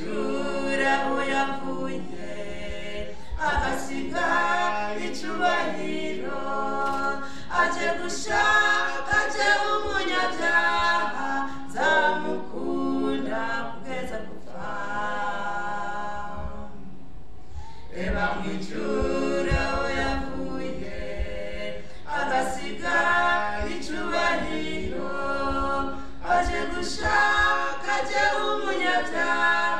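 A small group of voices singing a gospel song unaccompanied, amplified through microphones, with a quieter stretch about halfway through.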